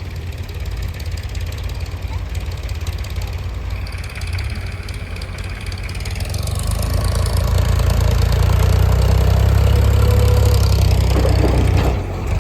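Heavy diesel engine of a JCB 3DX backhoe loader running, building up to higher revs about halfway through and holding there for several seconds as the machine works, then dropping back near the end.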